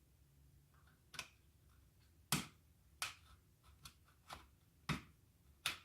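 Hard plastic parts of a Felix Norma hair dryer clicking and knocking as the front filter cap is pressed and twisted against the body to line up its notches. About seven sharp clicks, the loudest three spread through the second half.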